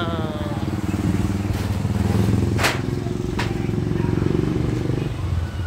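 A small engine running steadily, with two sharp clicks around the middle; part of its sound drops away about five seconds in.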